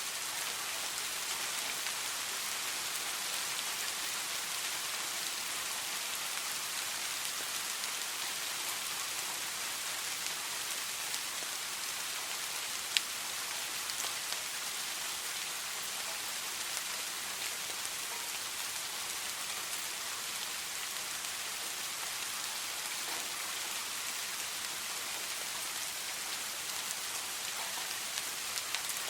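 Steady rainfall: an even hiss of many drops on a surface, with one sharp drip click about halfway through.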